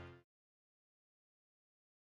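Near silence: the background music fades out within the first quarter-second, then digital silence.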